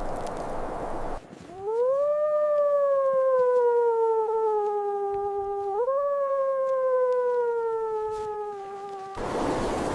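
A canine howling: one long drawn-out howl that rises at its start, slowly sinks in pitch, lifts again about halfway through and sinks once more before breaking off.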